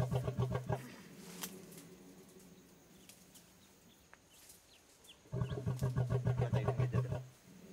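A sedated Asian elephant's loud, rattling snore-like breaths: one breath dies away about a second in and another comes about five seconds in, lasting some two seconds. Faint bird chirps are heard between them.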